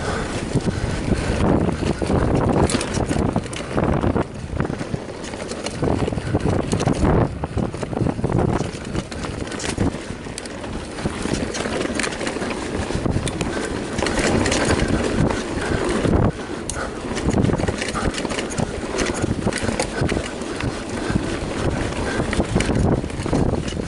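Mountain bike riding fast down a dirt forest trail: wind buffeting the microphone, tyres rolling over dirt, and the bike rattling and knocking over bumps throughout.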